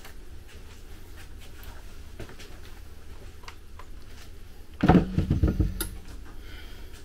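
A short burst of knocks and rattling about five seconds in, over a low steady hum.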